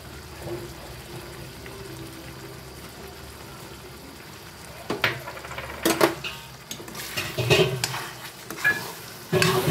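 Pea and paneer curry simmering in a steel kadai, a steady low hum; about five seconds in, water is poured into the hot pan from a bottle, then a metal spoon stirs the curry, scraping and clinking against the kadai several times.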